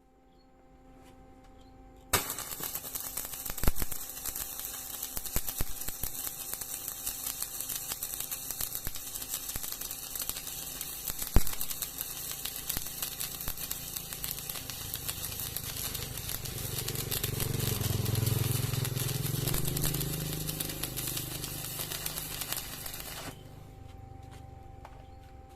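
Electric arc welding: the arc strikes about two seconds in and crackles steadily while a vertical weld bead is run, with a lower hum swelling in the later part, then cuts off abruptly a few seconds before the end.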